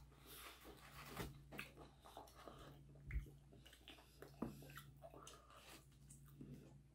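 Near silence: room tone with a faint steady hum and a few soft, scattered clicks.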